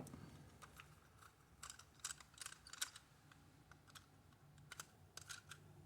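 Faint, scattered clicks and scrapes of a thin triangle security bit turning the triangular-head screws out of a small plastic toy.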